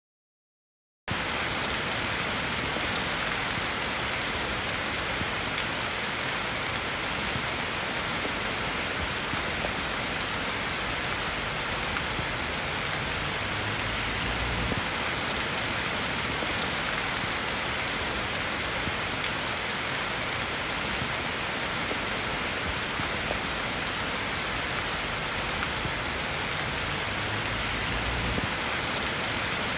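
Steady rain falling as an even, unbroken hiss. It starts suddenly about a second in and holds without pause.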